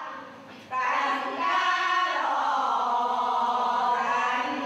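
A group of women singing a traditional Tanka fisherfolk song together in long held notes. The singing swells louder about three quarters of a second in.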